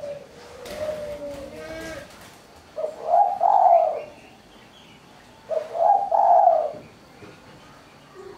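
Spotted dove cooing: softer coos in the first two seconds, then two loud phrases of its song about two and a half seconds apart. Its voice is mersik, a crisp, clear call prized by tekukur keepers.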